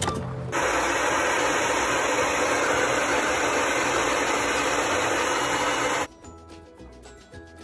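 A loud, steady rushing noise with no clear pitch begins about half a second in and cuts off abruptly after about five and a half seconds, followed by quieter background music.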